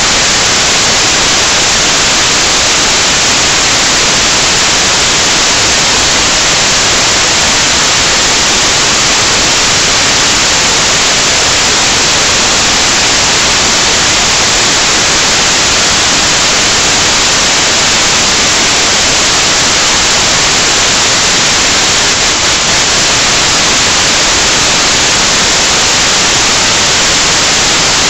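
Loud, steady static hiss with no pitch or rhythm, an even rushing noise that keeps on without change.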